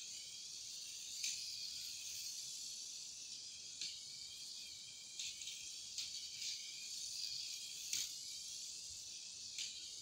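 Turbo Racing C75 1:76 micro RC car's tiny electric motor and gears whirring at a high pitch as it drives laps, with a few short sharp clicks along the way.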